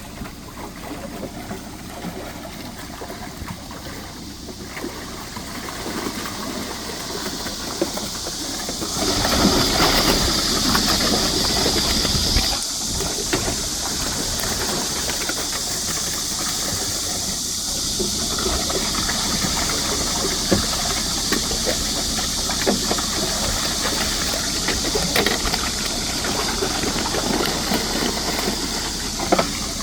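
Water rushing and hissing steadily as carp are released into a fishing pond. It swells loudest for about three seconds some nine seconds in, then settles to a steady rush with scattered small knocks.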